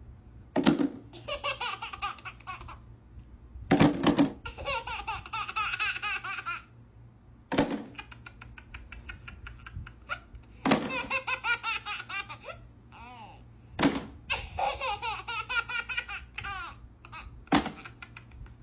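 A baby laughing in repeated bouts of rippling laughter, each bout starting with a sudden sharp sound, about every three to four seconds.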